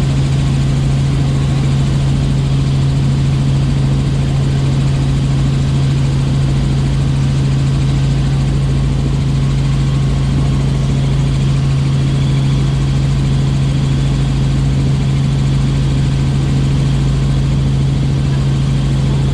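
Tour helicopter in flight, heard from inside the cabin: a steady, loud drone of rotor and turbine with a constant low hum.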